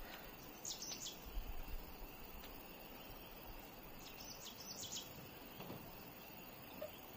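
Birds chirping in short high calls, a few at a time, over a steady outdoor background hiss with a faint insect drone. A brief low rumble comes a little over a second in.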